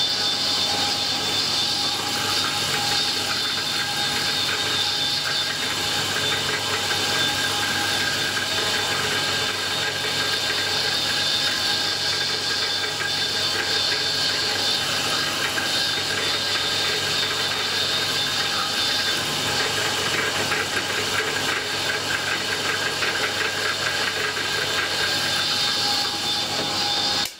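Drill mill running, drilling a small pin hole through a metal part: a steady motor and spindle whine over a hiss, holding even throughout.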